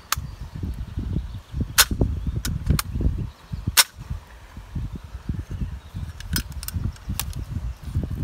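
Hand-forged iron mid-17th-century door lock worked by hand: its spring-loaded sliding bolts snap back with sharp metallic clacks, several times, the loudest about two and four seconds in, over a low rumble.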